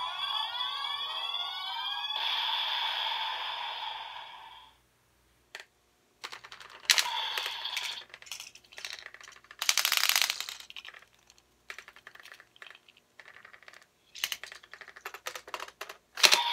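DX Evol Driver toy belt playing an electronic sound effect with sweeping tones through its small speaker, which stops about four and a half seconds in. Then come sharp plastic clicks and short rattles as the bottles are pulled from and pushed into the belt's slots, and right at the end the belt starts a new sound.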